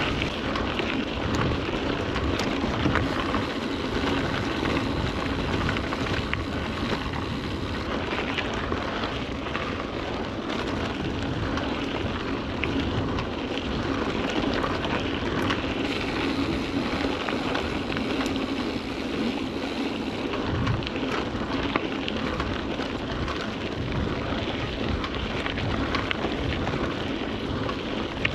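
Mountain bike riding a dirt singletrack: tyres running over the rough trail and the bike rattling with many small knocks over bumps, with wind noise on the microphone throughout.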